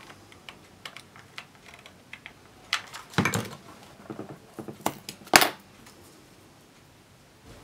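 Small clicks, taps and rustles of grey card strips and a hot glue gun being handled on a cutting mat, with a few louder knocks, the loudest a little over five seconds in.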